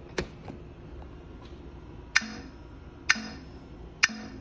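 Broken Simplex 4040 fire alarm clicking about once a second instead of sounding, each sharp click followed by a brief low buzz. The clicking is the sign of its fault.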